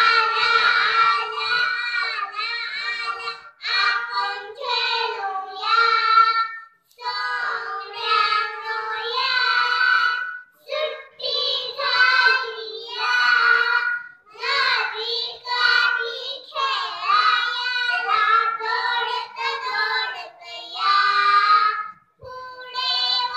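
Three young girls singing a song together into a microphone, unaccompanied, in phrases broken by short breaths.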